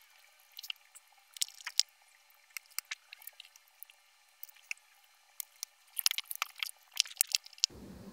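Scattered small clicks and taps of handling work on a laptop, sparse at first and bunching into a quicker, louder run about six to seven seconds in.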